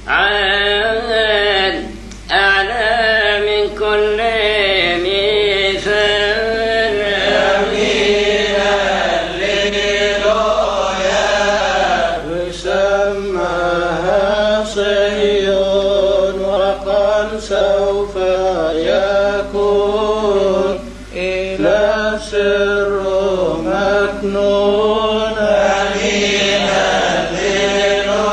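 A man's voice chanting a Coptic praise hymn (madeeh), in long phrases that bend up and down in pitch, with brief pauses for breath between them.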